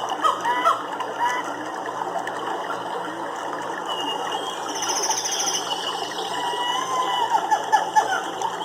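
Nature soundscape: many short chirping calls layered over a steady background hiss, with a brief high trill about five seconds in.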